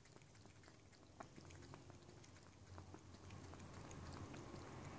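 A cat lapping liquid food from a shallow bowl: faint, irregular little wet clicks of its tongue.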